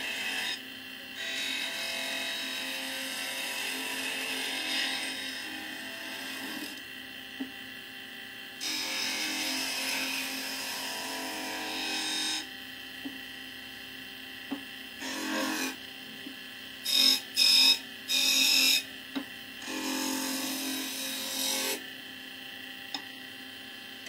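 Chisel scraping a small spinning wooden spindle on a wood lathe: a hissing scrape that comes and goes as the tool is pressed to the wood and eased off, over the lathe's steady hum. Three or four short, louder scrapes come about two-thirds of the way through.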